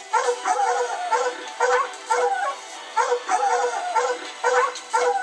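Hog-hunting hounds baying: a quick, unbroken run of barks, about three a second, some with a rising and falling bawl. This is the sound of dogs holding a wild hog bayed up in thick cover.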